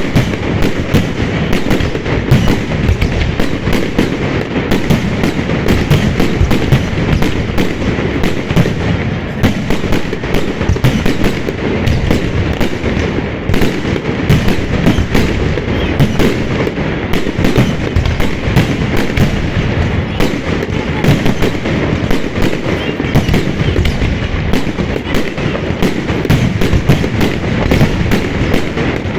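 Fireworks going off in a dense, unbroken barrage: rapid bangs and crackles overlapping one another with no pause.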